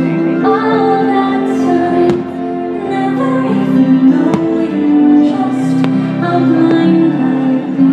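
Fireworks-show soundtrack music with singing, heard live in the crowd. A few firework bursts crack through it, around two, four and six seconds in.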